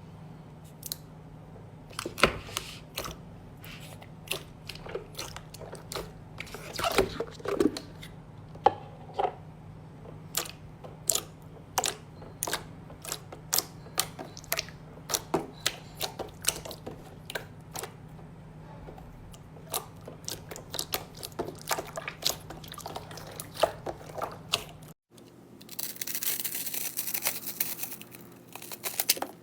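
Slime being squeezed and pressed by hand, making irregular sticky pops and clicks. Near the end it cuts to a denser, crinkling crunch.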